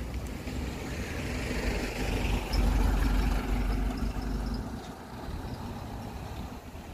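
A van driving past close by: its engine and tyres grow louder, are loudest about three seconds in, then fade away.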